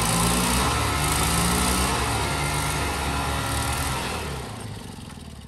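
An engine running steadily, then fading out over the last second or so.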